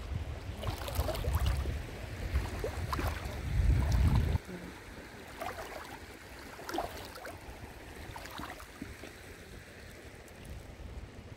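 Shallow seawater sloshing and splashing, with scattered small splashes. A heavy wind rumble on the microphone covers the first four seconds and cuts off suddenly.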